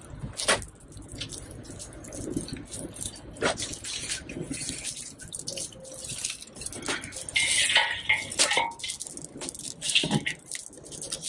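Dry twigs crackling and popping as they burn in a metal firepit, with rustling and snapping as more dry sticks are piled on, and knocks of wood against the metal bowl.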